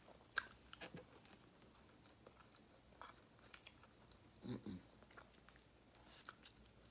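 Faint chewing of a mouthful of rice and peas, with small mouth clicks and a single sharp click about half a second in.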